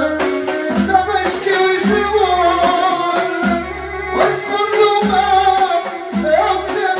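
Live Moroccan aita folk music: string instruments play a melody over a low drum beat that recurs about once a second, with singing.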